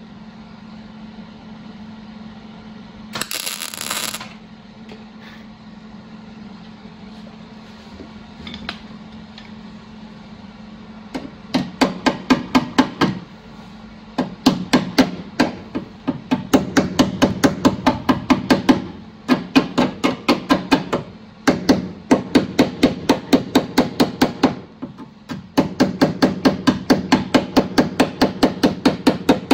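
Hammer beating sheet metal on a car body panel, in quick runs of about five strikes a second with short pauses, starting about a third of the way in: panel-beating during bodywork repair. Before the hammering there is a steady low hum and a brief burst of hiss about three seconds in.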